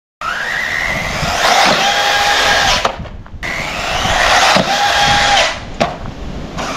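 Arrma Typhon 6S RC buggy's brushless electric motor whining under hard acceleration, twice, the pitch rising each time and then holding steady at speed. A sharp click comes near the end.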